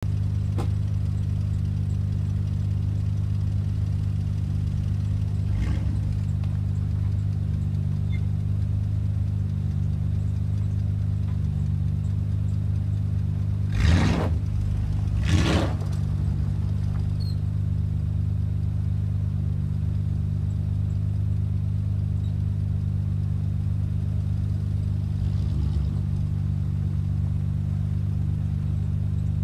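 Chevrolet Silverado pickup's 5.7-litre V8 running with a steady low rumble. Two brief louder bursts come about 14 and 15 seconds in.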